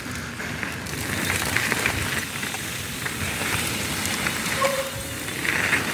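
Mountain bike riding down a trail: a steady rush of tyre and wind noise with many small ticks and rattles from the ground.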